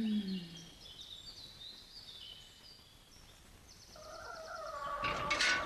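Farmyard poultry calling, faint at first and growing louder toward the end, with small birds chirping through the first few seconds.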